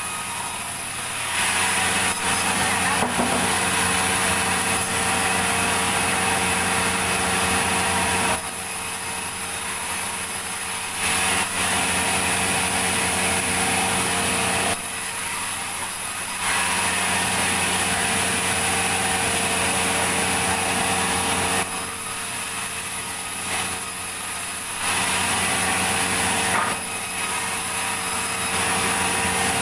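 Sawmill saw cutting through logs, several passes in a row. Each cut lasts a few seconds and brings a louder, rougher rasp over the machine's steady hum. Between cuts the saw runs on more quietly.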